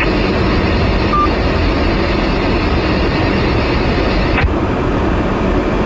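Steady noise of a car being driven, a low rumble without breaks.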